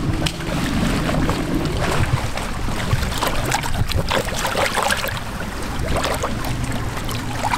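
Water splashing and sloshing as a bull redfish, held at the surface by a lip gripper, is released alongside a small boat. A steady low wind rumble runs underneath.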